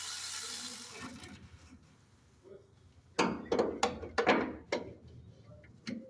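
A hand ratchet wrench clicking in several short, quick bursts about three seconds in, with one more click near the end. A steady hiss fades out in the first second.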